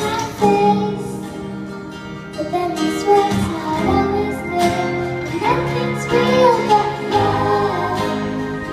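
A child singing a slow pop ballad into a microphone over instrumental accompaniment, long held notes over steady chords in the bass.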